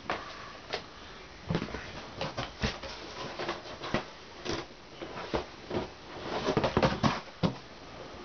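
Plastic DVD cases clicking and clacking against each other as they are handled and sorted: a string of irregular sharp knocks, with a quicker flurry late on.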